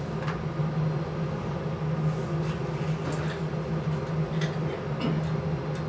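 Steady low machinery hum with a few faint clicks.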